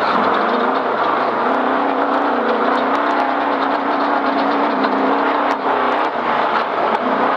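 Off-road race vehicle's engine running hard at a fairly steady speed, heard from inside the cockpit, its drone wavering and dipping briefly about a second in and again near six seconds. Scattered knocks and rattles from the vehicle on rough ground.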